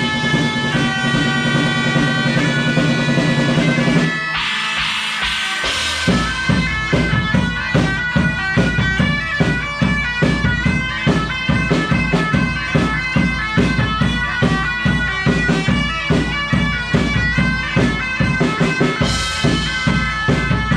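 Medieval-style bagpipes played live on stage, a tune over steady drones. The drones break off about four seconds in, and from about six seconds a steady drum beat drives the pipe melody.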